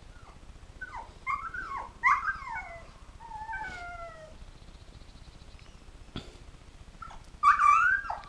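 A dog whining and yelping: a run of short, high cries sliding down in pitch in the first few seconds, then a louder, longer cry near the end that turns into a howl.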